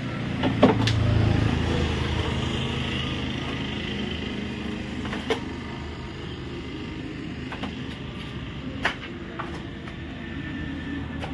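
An engine running, loudest about a second in and then slowly fading, with a few sharp knocks on top.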